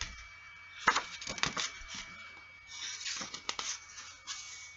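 Soft rustling with a few sharp clicks, the loudest about a second in, over a faint steady high whine and low hum.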